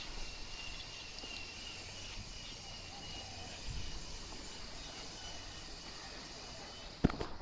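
Faint outdoor ambience with a steady, wavering high insect trill, and one sharp knock about seven seconds in.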